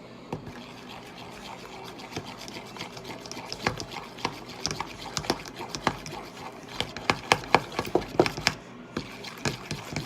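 Glue, baking soda and contact lens solution slime being stirred slowly in a container: wet, sticky squelching with irregular clicking pops that come thicker and louder from about three seconds in. The mix is still under-activated and sticky.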